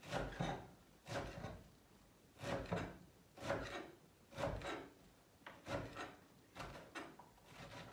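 Kitchen knife chopping a bunch of parsley on a wooden cutting board, a short cut about once a second.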